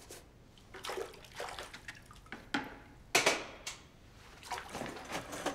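Water splashing in a bucket as a football boot is washed by hand, in several uneven bursts, the loudest about three seconds in.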